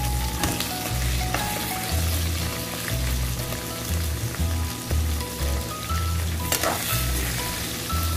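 Minced chicken breast sizzling in hot oil with onion and garlic in an aluminium wok. A metal ladle scrapes in the pan near the end as stirring begins.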